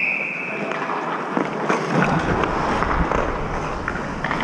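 Ice-rink sound heard from a goalie's helmet camera: skate blades scraping and hissing on the ice with scattered stick clicks. The tail of a referee's whistle ends right at the start.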